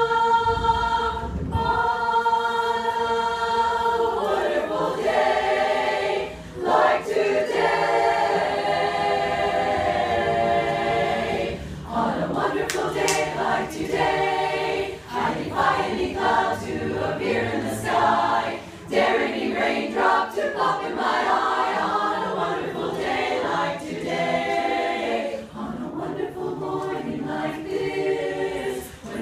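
Women's chorus singing a cappella. It opens on a held chord for about four seconds, then moves through phrases with brief breaks between them.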